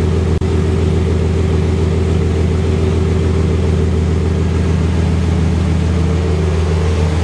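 A 1999 GMC Sierra's 4.3L Vortec V6 idling steadily at the tailpipe tip of a Gibson 3-inch cat-back exhaust with a packless muffler, shortly after a start while the engine warms up. There is a momentary dropout about half a second in.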